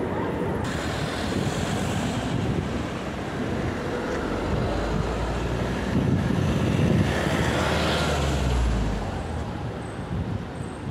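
Street traffic noise, with a heavy vehicle passing close by: a low rumble swells from about four seconds in, peaks around six to eight seconds, then fades.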